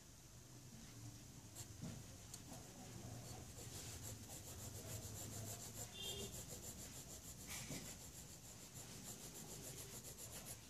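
Graphite pencil shading on drawing paper: faint, quick back-and-forth rubbing strokes that come fast and even through the second half.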